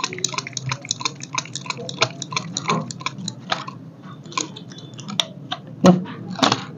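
Copper wire being hand-wound turn by turn into an angle grinder armature's slots through a winding guide: a quick run of light clicks, about three or four a second, slowing after a few seconds, with one louder knock near the end.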